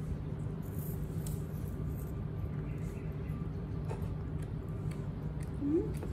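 Faint small clicks and smacking of baby monkeys eating apple pieces from plates, over a steady low hum. A brief rising voice sound near the end.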